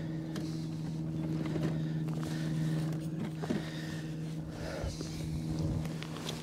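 A boat motor hums steadily at one even low pitch, with a few light knocks on the aluminium boat.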